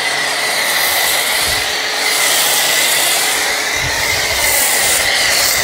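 Electric pressure washer running and driving a foam cannon, spraying thick car-wash foam in a steady loud hiss with a high whine held over it.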